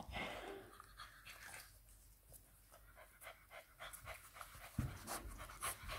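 English bulldog puppy panting faintly, in quick, short, evenly spaced breaths.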